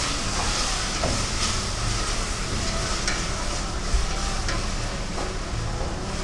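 Onion-tomato masala frying in oil in a pressure cooker pot, sizzling steadily while a spoon stirs it, with a few sharp clicks of the spoon against the pot. The ginger-garlic paste is cooking out its raw smell.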